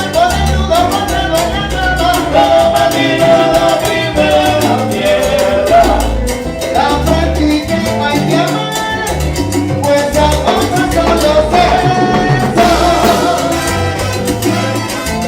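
Salsa music played by a salsa orchestra.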